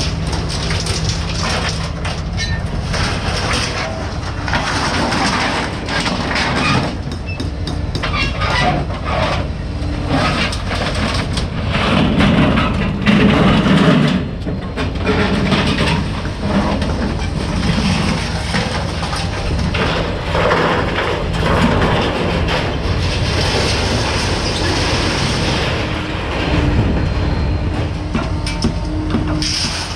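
A vehicle running on the move, with a steady low drone and continual rattling and clattering.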